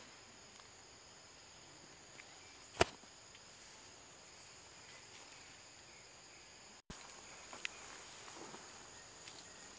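Insects in forest undergrowth keep up a steady, high-pitched buzzing drone on two constant tones. A single sharp click stands out about three seconds in, the sound drops out for a split second near seven seconds, and a smaller click follows.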